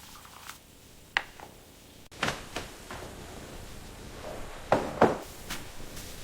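A handful of sharp clicks and knocks, the loudest two close together about five seconds in.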